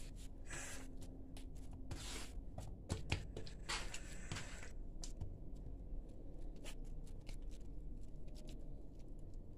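Hands squeezing and pinching off portions of oiled msemen dough: repeated soft wet squelches and rustles, with scattered light taps, the sharpest about three seconds in.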